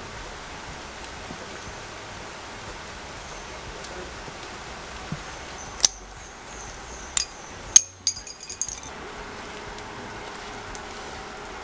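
Glass Red Stripe beer bottle being handled and opened: a few sharp clinks of glass and cap between about six and eight seconds in, followed by a short crackle, over a steady low hiss.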